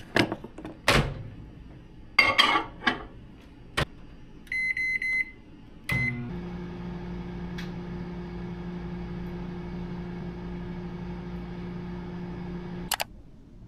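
Microwave oven in use: a few knocks and clatters as a glass food container is put in, then three short keypad beeps and one more as it is set, and the oven starts running with a steady hum. The hum cuts off with a sharp click about a second before the end.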